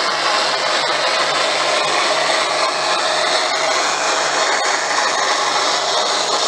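ESU V200 model diesel locomotive running with its coaches on the model railway: a steady rushing noise from its sound decoder and wheels rolling on the track, with a faint low throbbing hum underneath.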